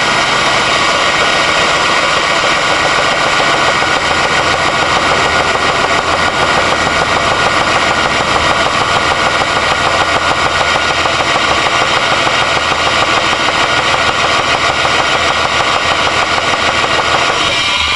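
Car engine running with a steady, rapid knock; the owner, whose engine ticked before the knock appeared, suspects rod knock. The engine winds down at the very end.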